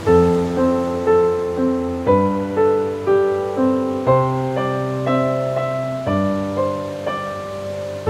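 Slow, gentle solo piano music, a note struck about twice a second over sustained bass notes that change every two seconds, with a faint wash of ocean waves underneath.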